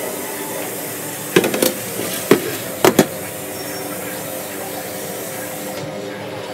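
Steady hiss of room noise, with a handful of sharp clicks and knocks about one and a half to three seconds in.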